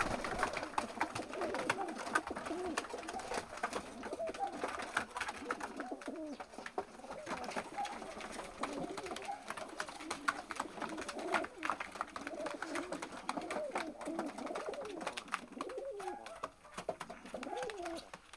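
Several gulerat (collared) pigeons cooing over and over, their calls overlapping, with scattered light clicks.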